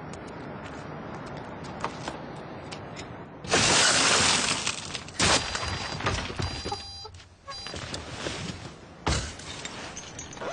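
A car window being smashed: a loud burst of shattering glass about three and a half seconds in, followed by a couple of sharp thumps and a run of short high beeps.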